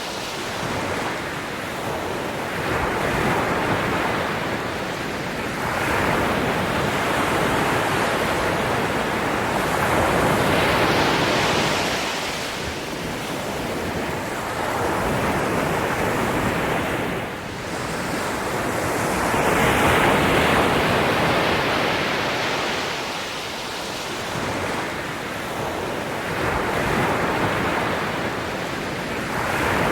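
Ocean surf: waves breaking and washing up the shore in slow surges, each swell rising and falling over a few seconds.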